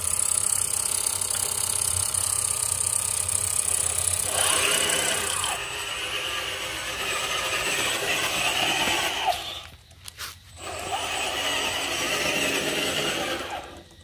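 Electric drive motor and two-speed gearbox of a remote-control 6x6 truck whining as it drives over dirt, the pitch rising as it speeds up; the sound breaks off briefly about two-thirds of the way through.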